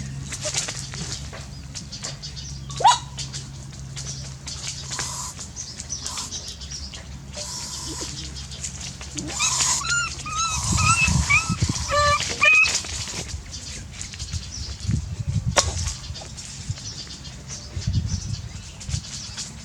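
A puppy whimpering in a run of short, high yelps about halfway through, amid scattered clicks and rustling from handling.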